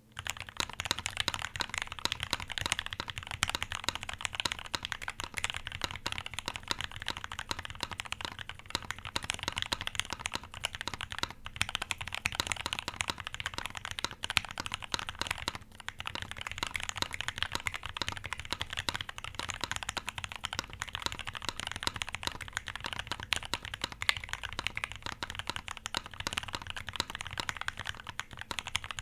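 Continuous fast typing on a Quantrik Kyuu mechanical keyboard with a brass plate, Gateron Red Ink v2 linear switches (lubed and filmed) and lubed stabilizers. The keystrokes are dense and steady, with two very brief pauses partway through.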